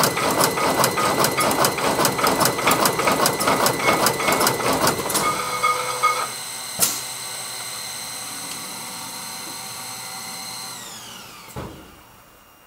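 Zahoransky ET120 brush-tufting machine working at speed, its tufting tool punching tufts into a wooden disc-brush block several strokes a second in a rapid, even mechanical rhythm. The tufting stops abruptly about six seconds in and a single click follows. A steady motor whine then falls in pitch and dies away as the machine winds down.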